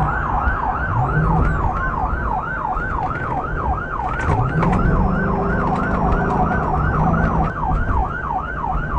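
Police cruiser siren in rapid yelp mode, sweeping up and down about four times a second, heard from inside the pursuing car. Beneath it an engine note rises twice as the car accelerates, about a second in and again near the middle.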